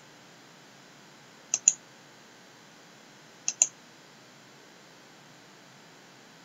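Computer mouse button clicks: one click right at the start, then two sharp press-and-release pairs about two seconds apart, over a faint steady hiss.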